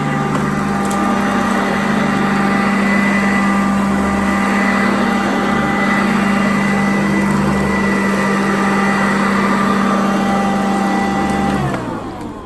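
Sanitaire upright vacuum cleaner running steadily with a constant motor whine, then switched off near the end, its motor winding down with a falling pitch.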